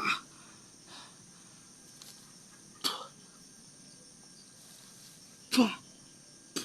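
Four short, sharp noises a few seconds apart, the loudest about five and a half seconds in and falling in pitch, over a faint steady high drone of night insects.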